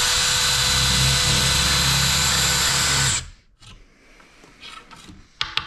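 Power drill running at a steady speed for about three seconds as it bores a vent hole through a PS5's plastic faceplate, then cutting off. A few light clicks come near the end.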